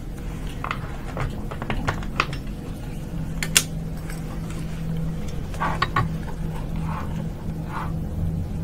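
Steady low room hum with scattered light clicks and knocks.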